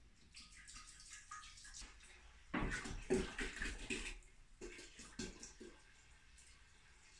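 Water poured from a large plastic bottle into a stainless steel stockpot, splashing in uneven gushes. The pour is loudest from about two and a half seconds in to about four seconds, with a few shorter gushes near five seconds.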